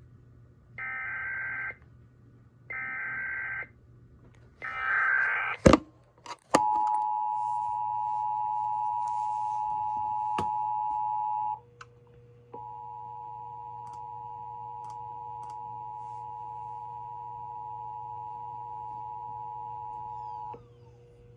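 Emergency Alert System test alert: three raspy SAME data bursts about a second apart, then two sharp clicks and the steady two-tone EAS attention signal, which holds for about five seconds, breaks off, and resumes quieter for about eight seconds.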